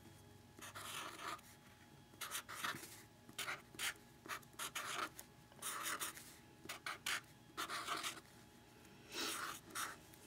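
Felt-tip marker scratching across notebook paper in short, irregular strokes, writing a series of numerals.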